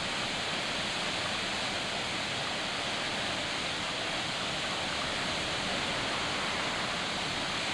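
A waterfall's water rushing: a steady, unbroken hiss of falling water.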